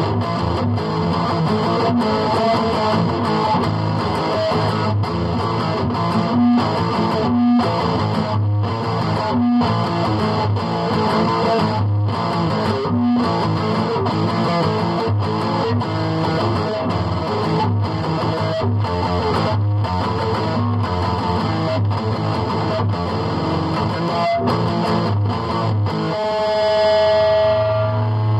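Electric guitar through distortion playing a rock riff, chopped by many short stops, with one long held note near the end.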